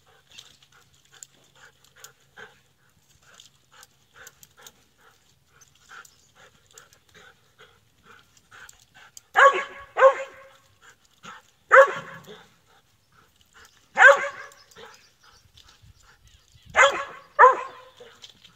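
Squirrel dog treeing a squirrel: soft short whines about twice a second, then loud barks from about nine seconds in, six in all, the last two close together.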